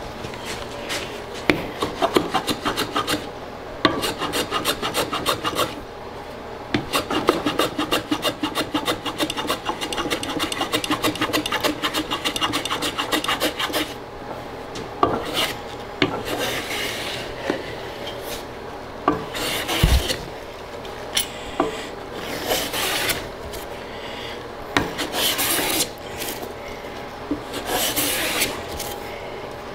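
A metal hand plane shaving a dovetailed drawer side to flush a repaired joint. The first half comes in long runs of rapid strokes, the second in separate strokes about every two to three seconds. There is one dull knock about two-thirds of the way in.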